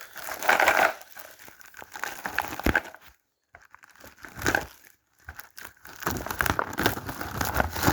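Cardboard and plastic packaging rustling and crinkling in irregular bursts, with small knocks and clicks, as parts are pulled out of a box; it stops briefly twice.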